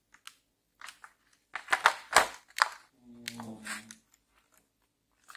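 Handling noise from a clear plastic blister tray of pneumatic accessories: a string of sharp clicks and clattering knocks, loudest about two seconds in, as a small air blow gun is set back into its moulded plastic slot.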